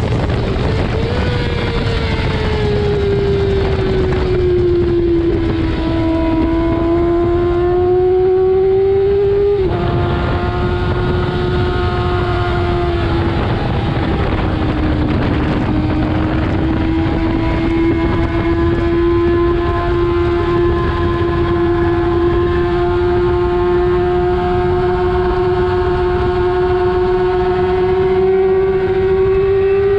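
Kawasaki ZX-6R's inline-four engine running hard at high revs on a racetrack, its pitch slowly easing and climbing, with one sudden drop about ten seconds in. Heavy wind rumble on the microphone underneath.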